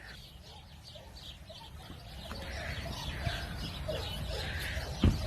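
Faint, scattered bird chirps over a low background rumble, with a single short thump about five seconds in.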